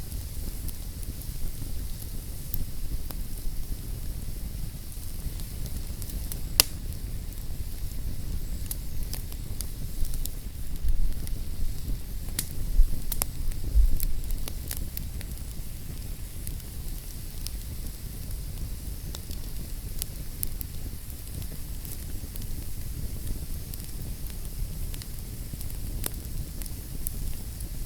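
Wood fire burning in a fireplace: a steady low rumble and hiss with scattered sharp crackles and pops. There is one louder snap about six and a half seconds in and a busier cluster of pops around eleven to fourteen seconds in.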